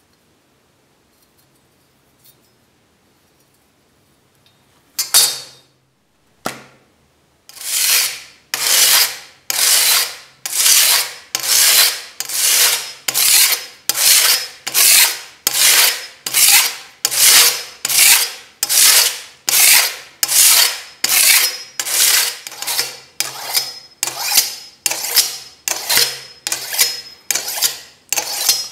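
Steel knife blade scraped back and forth over a sheet of coarse sandpaper to sharpen it. About five seconds of quiet, then two single scrapes, then a steady run of scraping strokes a little over one a second.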